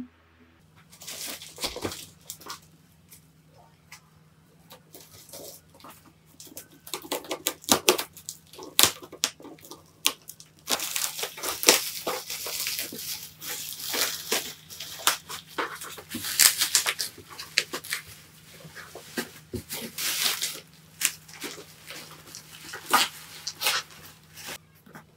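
Packaging being handled and opened: irregular rustling, crinkling and tearing with light knocks and clicks, sparse at first and busier from about ten seconds in, over a faint steady low hum.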